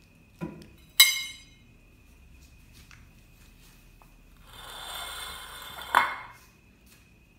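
Two young cats scuffling on a wooden table: a soft thump, then a sharp ringing knock about a second in. Later comes a few seconds of paper crinkling as they scrabble, ended by another sharp knock.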